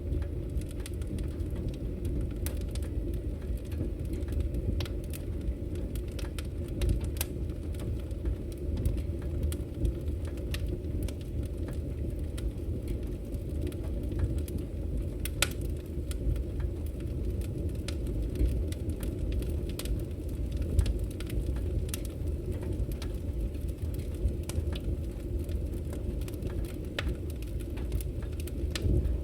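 Fire crackling: a steady low rumble of flames with scattered sharp pops and snaps, a couple of louder pops about halfway through and again a little later.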